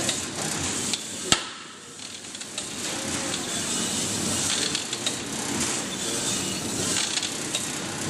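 Intermec AMF-300 brine injector running, with a steady hiss of brine spray and light mechanical clatter from the needle head. One sharp knock a little over a second in.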